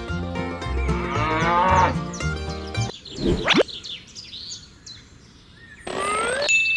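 A cow mooing, laid over light background music, in the first few seconds. About three seconds in a quick rising whistle-like glide, and near the end short rising chirps.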